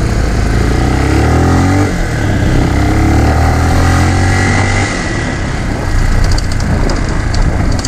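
Motorcycle engine running while riding, under a steady rush of wind and road noise. The engine note glides in pitch in the first couple of seconds and eases off about five seconds in.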